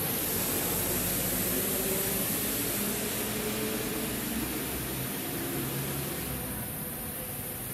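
A motor vehicle's engine running and slowly fading away, with faint wavering pitch and a low rumble, over a steady high hiss.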